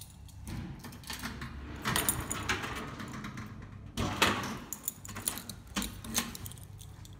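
A bunch of keys jangling and turning in the lock of a metal security gate, with sharp metallic clicks and clanks from the lock and gate; the loudest clank comes about four seconds in.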